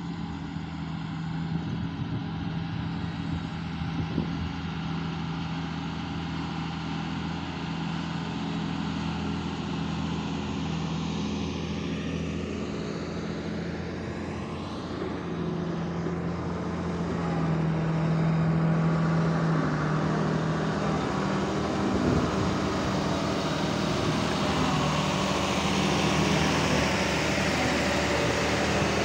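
Heavy diesel engines of mining dump trucks and an excavator running with a steady low drone, getting louder about two thirds of the way through.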